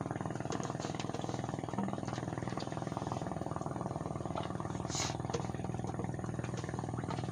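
A small engine running steadily with a fast, even firing rhythm.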